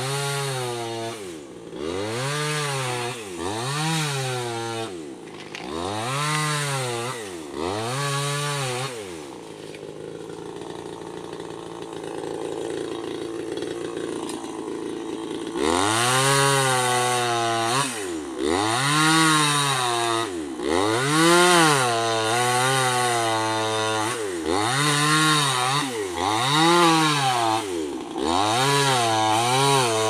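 Chainsaw engine revving up and down in quick repeated pulses, settling to a steadier low run for a few seconds around the middle before revving hard again.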